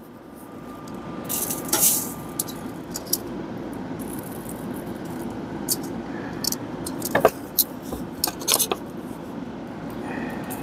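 Metal tongs clicking and scraping against a pellet grill's steel grate as raw chicken drumsticks are set down, a scatter of short sharp knocks over the steady rush of the running grill.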